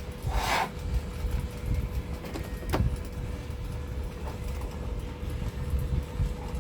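Steady low background rumble with a thin steady hum; a short hiss about half a second in and a single sharp click near three seconds.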